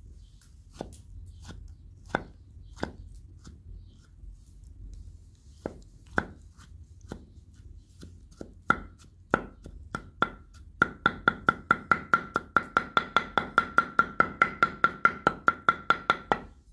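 Chef's knife chopping a peeled tomato on a wooden cutting board. Scattered single cuts at first, then past the middle a fast, even run of about four chops a second, each with a short ringing note, which stops suddenly near the end.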